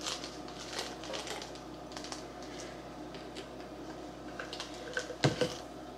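Plastic vitamin bottles being handled, with small scattered clicks and rattles and one louder knock about five seconds in.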